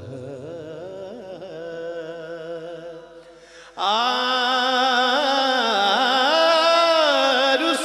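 Man singing a Punjabi devotional song in a slow, ornamented style. A softer wavering phrase fades, then about four seconds in a loud held note comes in abruptly and is sustained with slow bends in pitch.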